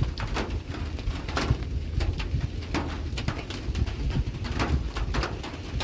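Campfire crackling, with irregular sharp snaps and pops several times a second over a low steady rumble.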